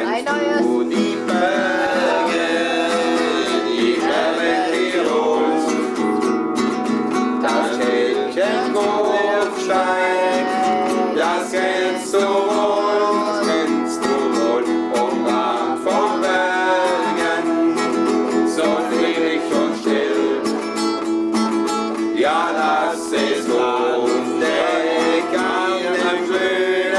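Nylon-string classical guitar strummed steadily while a man sings a folk song along with it.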